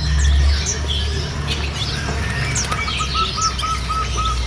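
Many caged birds chirping at once, with short high calls scattered throughout over a steady low rumble. Over the last second and a half, a quick run of about eight short, evenly spaced notes.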